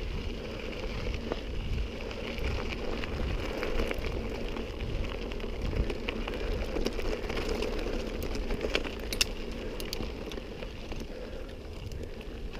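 Mountain bike rolling down a loose gravel and dirt track: tyres crunching and crackling over small stones, with a steady low rumble and a few sharp clicks a little after halfway.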